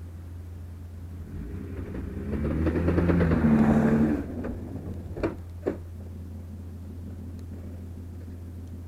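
2005 Kia Sorento drivetrain under load: over a steady low hum, a rising, crunching noise builds for about two seconds and cuts off suddenly, followed by two sharp knocks. The crunch is the sign of a stretched chain in the worn TOD transfer case.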